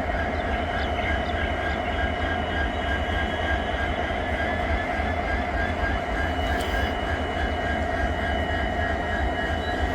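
EMD diesel-electric locomotives (WDP-4D, WDG-4 and WDP-4, powered by two-stroke EMD 710 V16 engines) idling together: a steady deep hum with several constant high tones held above it.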